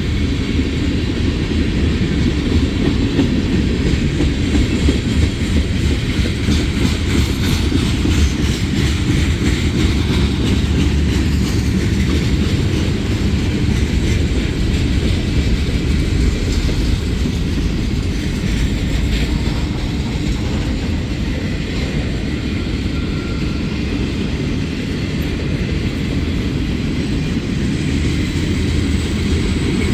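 Freight train rolling past: a steady, loud rumble of steel wheels on the rails with clickety-clack from the rail joints, and no horn.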